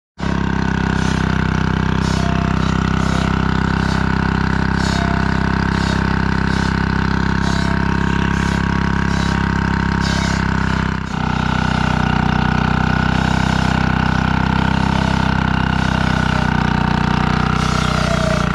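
Holder two-stroke diesel tractor engine running steadily at a constant speed, with a brief dip about eleven seconds in.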